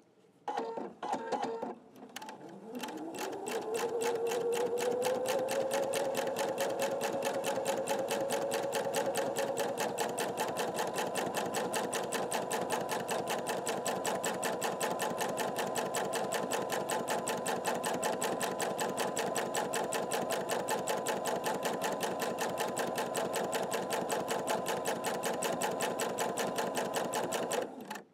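Sewing machine free-motion quilting: a few slow stitches, then the motor winds up over about two seconds into a fast, steady run of needle strokes. It stops abruptly near the end.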